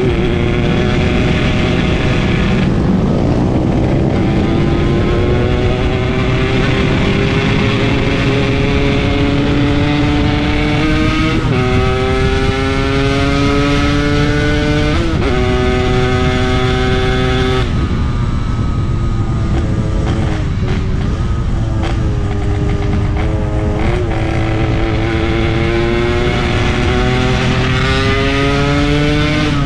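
Yamaha RX-King 135cc single-cylinder two-stroke motorcycle engine under way. Its pitch climbs under throttle and breaks off at gear changes several times, with the throttle eased and blipped midway.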